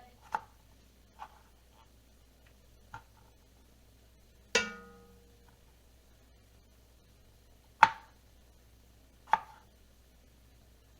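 Knife chopping on a cutting board in single, widely spaced strokes, about six in all. One knock about four and a half seconds in rings on briefly with a metallic tone.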